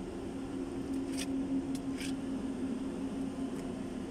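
Light metallic clinks of a wrench on the fan pulley bolts of a Cummins KTA50 diesel engine, three in about a second, over a steady low machine hum.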